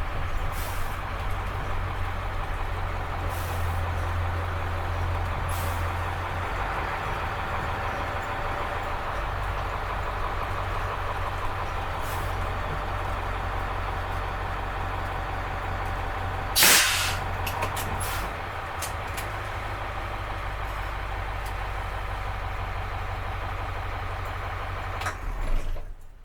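School bus diesel engine running steadily, with a short loud hiss of air from the air brakes about two-thirds of the way through. The sound cuts off abruptly at the end.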